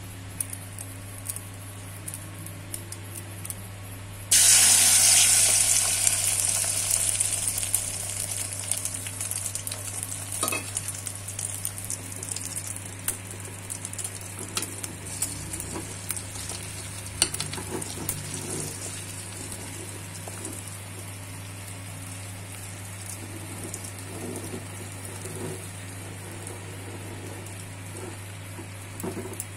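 Beaten egg with chopped onion and green chilli hitting a hot oiled metal pan: a loud sizzle starts suddenly about four seconds in and slowly dies down to a steady, gentler frying sizzle, with occasional sharp clicks of utensil against pan.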